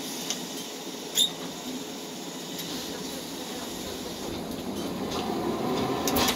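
Hankai Tramway streetcar running along its tracks, heard from on board as a steady low rumble. There is one brief high squeak about a second in, and the running noise grows louder over the last couple of seconds.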